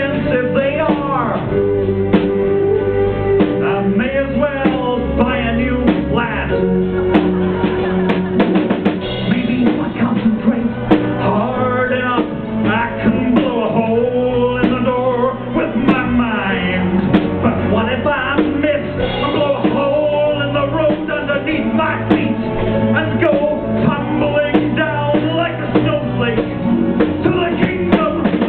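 A live band playing a pop song, with drum kit and other instruments and a sung vocal line.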